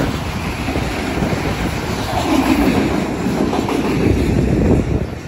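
CN freight cars rolling past close by, their steel wheels rumbling and clattering on the rails, a bit louder in the middle.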